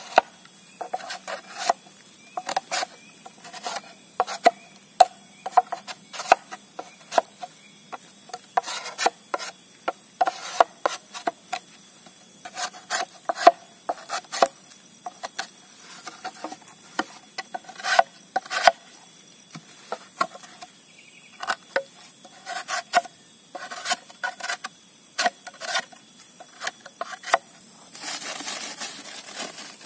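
Knife scraping and cutting at a green bamboo tube in a quick series of short rasping strokes, about two a second. Near the end they give way to a steady hiss.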